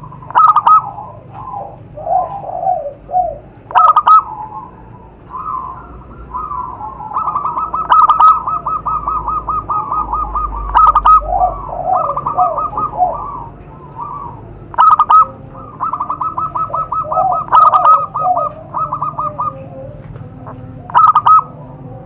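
Zebra doves (perkutut) cooing: repeated staccato coos and fast runs of short notes, with more than one bird calling over another at times. A few louder call openings stand out, about one every three to four seconds.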